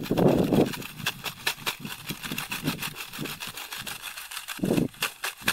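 Rumbling gusts of wind on the microphone at the start and again briefly near the end. Between them come many small, irregular clicks and ticks of shallow seawater splashing and dripping around wading legs.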